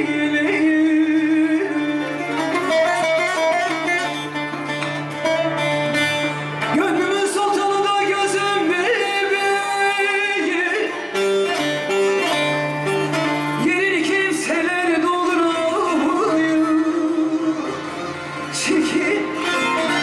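A woman singing live into a handheld microphone, amplified over a loudspeaker, with instrumental accompaniment; she holds long notes that bend and waver in pitch.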